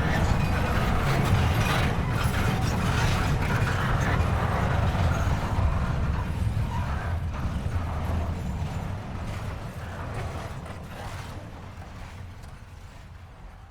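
A steady mechanical rumble with dense clicking and rattling, fading out over the last few seconds.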